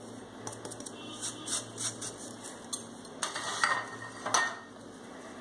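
Stainless steel sieve shaken and tapped over a mixing bowl of flour, making a quick run of light metallic ticks. A few sharper clinks of metal on the bowl follow about three to four seconds in, as a wire whisk starts into the sifted flour.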